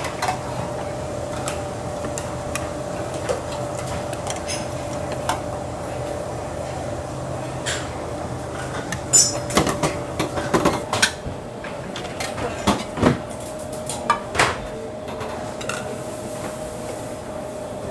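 Kitchen work: scattered clinks and knocks of dishes and utensils over a steady hum, coming thickest in the second half.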